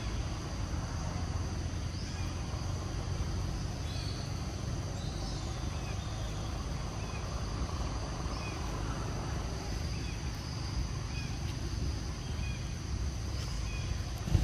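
Outdoor ambience: a steady low rumble under a steady high insect drone, with short faint bird chirps every second or so.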